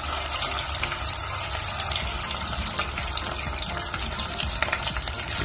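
Rose water with saffron sizzling and bubbling in hot melted butter and oil in a pot, stirred with a wooden spoon: a steady hiss with many small crackles.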